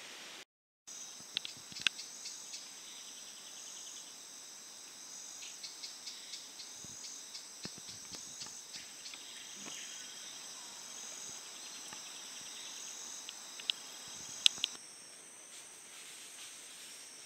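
Rainforest insect chorus: several steady high-pitched insect songs layered together, some pulsing, with part of the chorus stopping about 15 seconds in. The sound cuts out briefly just after the start, and a few sharp clicks stand out near the start and about 14 seconds in.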